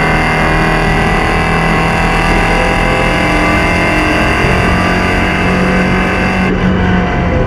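Porsche 944 Spec race car's four-cylinder engine running hard at fairly steady revs, its pitch drifting slowly, with a brief change in tone near the end.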